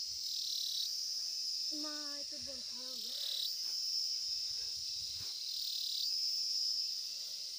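Insects chirring in dry grass and scrub: a steady, high-pitched buzz that wavers a few times, with a brief voice about two seconds in.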